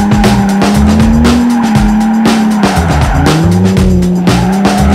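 Drift car's engine revving hard under load while the tyres squeal through the course, its pitch dropping sharply and climbing again several times. Music plays along with it.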